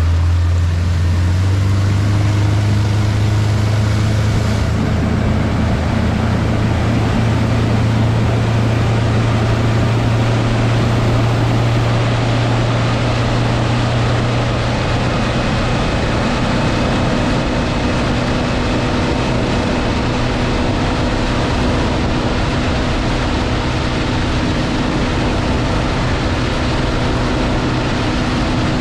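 Bass boat outboard motor running steadily at speed: a loud, even low drone over a constant rushing noise.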